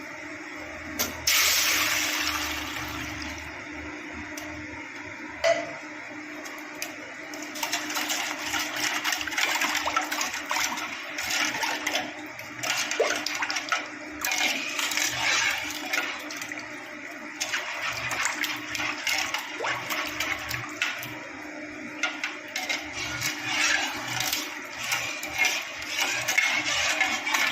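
Milk poured into a kadai of hot caramelised sugar about a second in, hissing and sizzling, then a steady bubbling with many small crackles.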